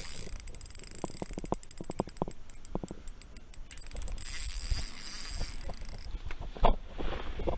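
Scattered light clicks and knocks from handling a fishing rod and line, with one louder thump near the end.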